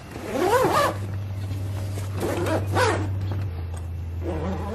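Zipper on a soft rooftop cargo bag being pulled closed in two strokes, about half a second in and again about two seconds in, each a rasp that rises and falls in pitch.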